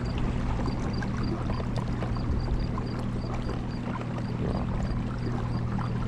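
Old Town Sportsman 106MK kayak under way on its Minn Kota electric drive: a steady motor hum with water washing along the hull. A faint high chirping repeats in the background, about three times a second.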